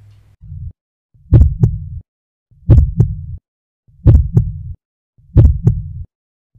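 Heartbeat sound effect: slow, steady lub-dub double thumps, four of them about 1.3 seconds apart, after a short single thump at the start.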